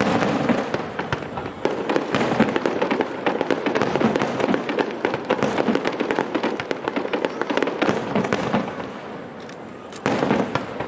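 Aerial fireworks going off: a sudden loud burst at the start followed by dense, rapid crackling, which thins out about eight seconds in before another loud burst near the end.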